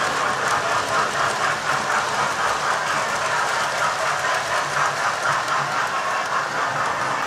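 Model railway train running on the layout: the coaches' wheels rattle over the track with a fast, even clicking over the rail joints.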